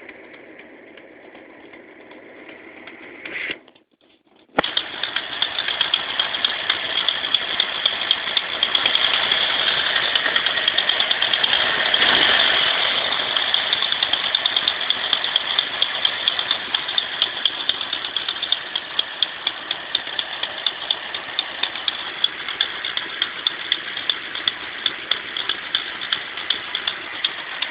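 Ford 351 Windsor V8 running with a fast, regular ticking, which the owner cannot pin down as either an exhaust leak or a lifter tick. The sound drops out briefly about four seconds in, comes back loud, and swells for a few seconds near the middle.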